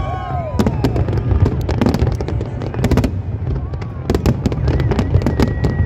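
Big fireworks display: many shells bursting in quick succession, sharp bangs and crackles over a continuous low rumble. A long, steady whistle sounds near the end.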